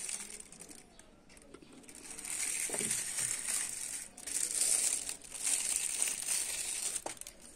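Thin clear plastic wrapping crinkling as it is pulled and peeled off a wristwatch, in several bursts starting about two seconds in.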